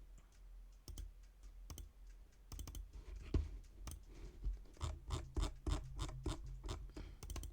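Clicking and typing on a computer keyboard and mouse: irregular short clicks, some in quick runs, over a steady low hum.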